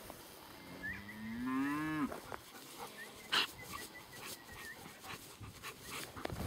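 A cow mooing once: one call of about a second, starting about a second in, rising in pitch and dropping off sharply at its end. A short sharp click follows about halfway through.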